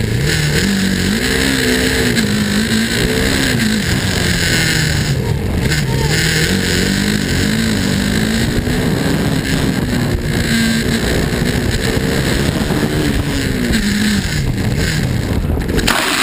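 KTM Duke 390's single-cylinder engine running hard, its pitch repeatedly climbing and dropping as the throttle is opened and closed through the corners of a racetrack.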